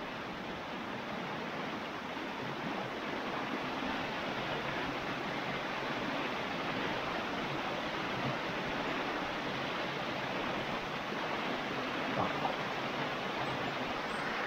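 Steady rush of flowing river water, with a couple of faint knocks about twelve seconds in.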